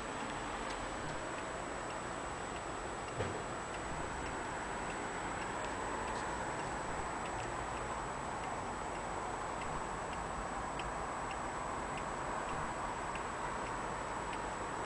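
Hermle pendulum wall clock ticking steadily over a low background hiss, with a single knock about three seconds in.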